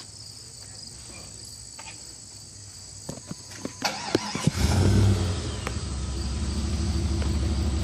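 Crickets chirping in the background, then about four seconds in a 1998 Jeep Grand Cherokee Laredo's 5.2 L V8 cranks, starts and settles into a steady idle through its stock exhaust with both catalytic converters still fitted.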